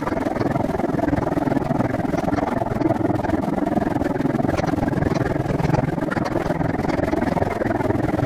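Steady wind rush and rolling rumble on a bicycle-mounted camera's microphone while riding, with faint scattered clicks of rattle.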